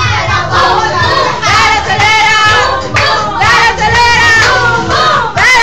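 A group of children singing and shouting along over loud music with a pulsing bass.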